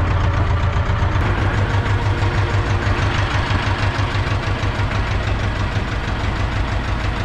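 Ursus C-330 tractor's two-cylinder diesel engine running at a steady speed with an even, fast throb.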